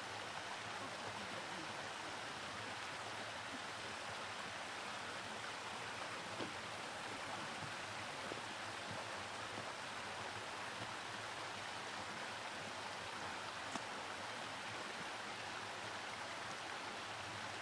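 Steady, even rushing outdoor ambience with no distinct events, only a few faint ticks.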